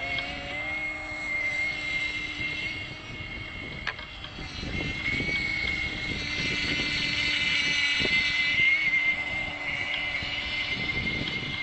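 The OPS 3.5 two-stroke glow engine of a model offshore powerboat, fitted with a silenced pipe, runs at high revs with a steady high whine. It gets louder in the middle as the boat comes nearer. Gusting wind buffets the microphone throughout.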